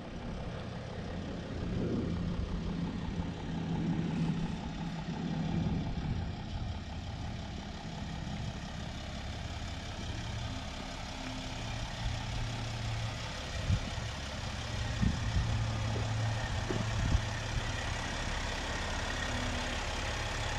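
Mercedes-Benz Sprinter van's engine idling steadily, with a few brief knocks in the second half.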